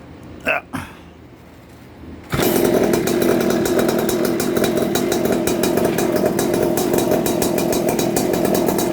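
Evo Powerboard 71cc scooter engine starting about two seconds in and then running steadily with a rapid, even beat through its Arrow aftermarket exhaust pipe. A short noise comes about half a second in, before the engine catches.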